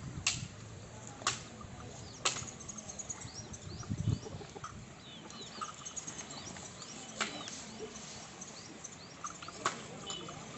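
Bullocks feeding on dry straw, with rustling and sharp crunching snaps, three about a second apart at the start and a few more later. Small birds chirp throughout over a steady outdoor hiss.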